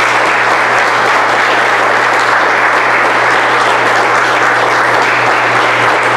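Audience applauding, a dense, even clapping that holds at a steady level.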